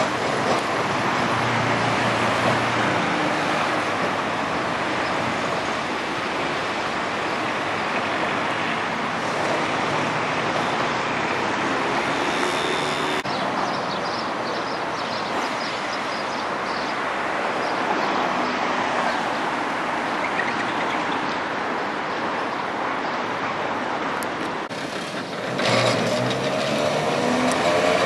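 Vintage electric trams running on street track: a steady rolling rumble mixed with road traffic. Near the end a wavering whine joins in.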